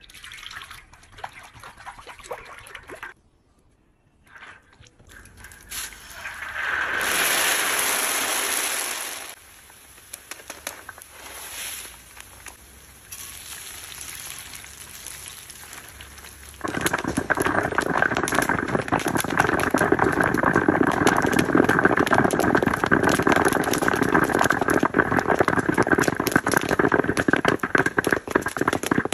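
Hot cooking oil in a wok sizzling as noodles deep-fry: a loud rush of sizzling about seven seconds in, then from about halfway steady, loud sizzling with dense crackling.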